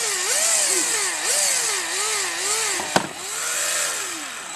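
Small high-speed drill or rotary tool drilling a hole. Its motor pitch repeatedly dips and recovers as the bit bites into the material. A single sharp click comes about three seconds in.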